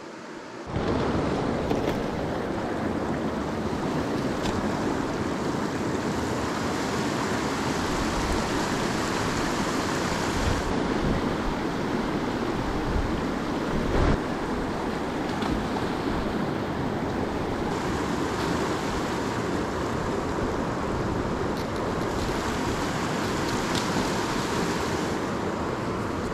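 Fast river rapids rushing over rocks: a steady, loud wash of water that sets in abruptly under a second in, with wind buffeting the microphone.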